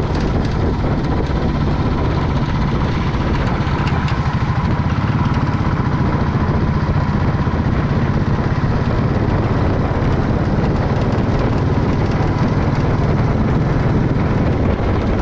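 Motorcycle engine running steadily on the move, with a constant rushing noise over it.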